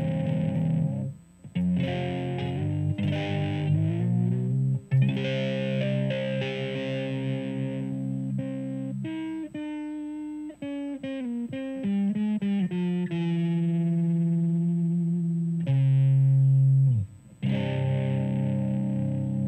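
Electric guitar through a distortion pedal with its gain maxed, playing heavy chords and riffs. A faster run of single notes comes midway. It stops briefly about a second in, and again near the end after a note slides down in pitch.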